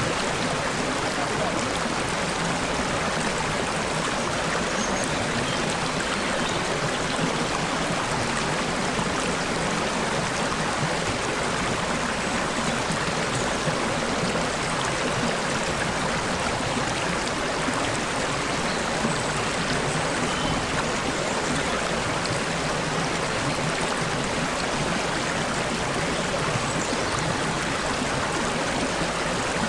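Shallow stream of water babbling and trickling steadily over stones.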